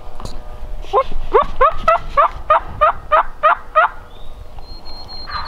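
Turkey calling: a loud run of about ten quick notes, roughly three a second, over some three seconds.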